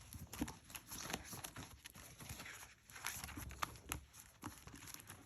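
Handling of a paper cash envelope and paper bills: scattered light clicks and soft paper rustling as the envelope is opened and the money taken out.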